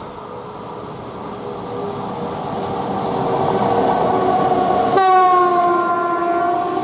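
A train running past on the line. About five seconds in its locomotive's horn sounds a long held blast, the loudest sound here, its pitch sagging slightly as it goes by.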